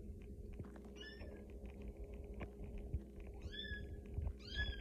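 Baby kitten mewing: three short, high-pitched mews, one about a second in and two near the end.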